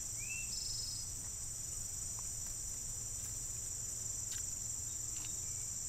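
A steady, high-pitched chorus of insects trilling in summer woods, with a low steady hum underneath. A short rising chirp sounds just after the start.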